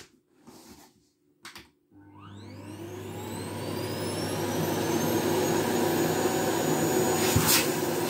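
Philips Marathon FC9205 canister vacuum cleaner switched on about two seconds in, its motor winding up with a rising whine and growing steadily louder. It runs with its suction opening blocked to mimic a fully clogged vacuum, which changes its note. A couple of short bumps near the end.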